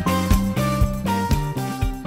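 Upbeat instrumental background music with a steady beat, playing under the end card.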